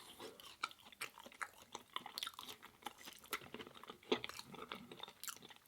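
A person chewing food close to the microphone: a steady run of small crunching clicks, with a sharper crunch about four seconds in.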